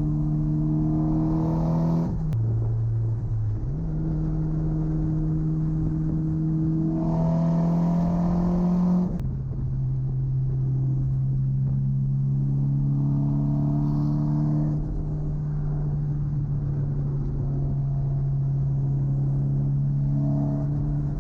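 Mitsubishi Lancer Evolution X GSR's tuned turbocharged 2.0-litre 4B11T four-cylinder engine pulling on the road, its note climbing slowly through the gears. The pitch drops suddenly about two seconds in and again about nine seconds in, with a step back up around four seconds.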